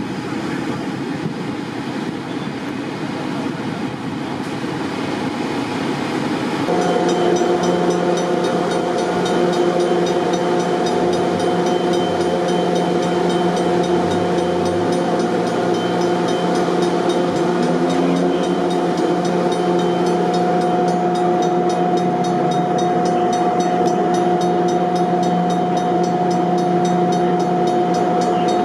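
Steady hum of a stopped electric commuter train, setting in about seven seconds in as a constant multi-tone drone over outdoor background noise.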